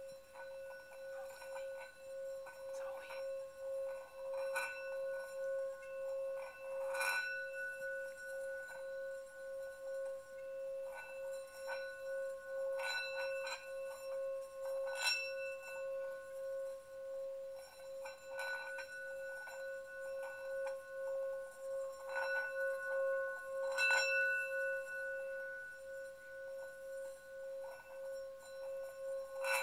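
Tibetan singing bowl sounding one steady, evenly pulsing hum, kept going around its rim. A few times a sharper strike rings out, bringing up higher ringing overtones.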